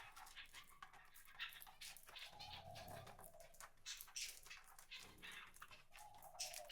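Faint bird-feeder ambience: light, irregular clicks and taps of birds pecking and moving about at the feeder, at a very low level.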